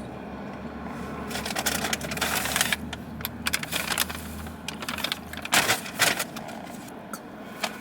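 Crinkling and rustling of fast-food packaging being handled while eating, in two spells of crackly clicks, the second short and sharp, over a low steady hum.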